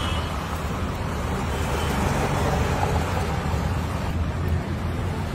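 Steady low rumble of road traffic, vehicles running past on the street.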